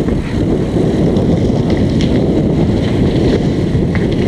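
Wind noise buffeting the microphone of a camera on a moving bicycle, a steady low rumble with a few faint ticks.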